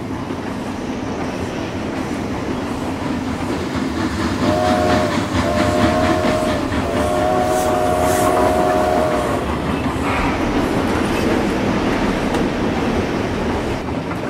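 Train running on rails with a steady clatter of wheels, and its horn sounding three blasts starting about four seconds in, the third blast the longest.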